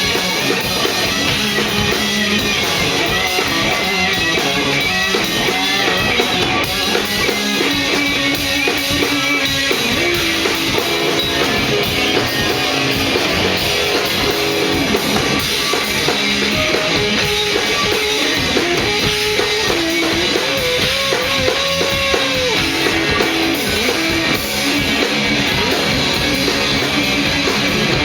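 Rock band playing live: electric guitar and drum kit at a steady, loud level, with a held, bending lead note a little past the middle.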